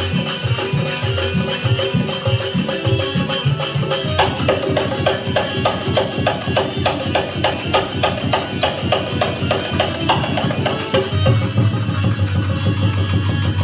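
Instrumental passage of Fiji phaag (chautaal) music: a dholak drum played under a constant metallic jingle of hand cymbals. From about four seconds in the drumming breaks into a quick, even run of strokes that ends about eleven seconds in, after which a low held note sounds under the cymbals.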